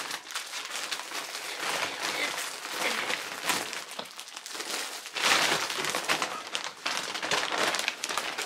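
Clear plastic bag of yarn skeins crinkling and rustling as it is handled, irregular and getting louder about five seconds in.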